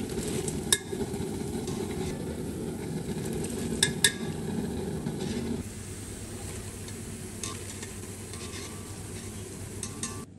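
Hot oil sizzling in a kadai while a wire spider strainer lifts fried cauliflower pieces and tips them into a steel bowl, the strainer clinking against the metal several times, two close together about four seconds in. The sizzle drops to a lower level a little past halfway.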